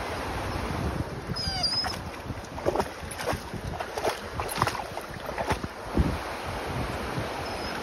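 Shallow river water rushing over rocks, with splashes of feet and a dog wading through it, thickest from about two and a half to six seconds in. A brief high-pitched squeak sounds about a second and a half in.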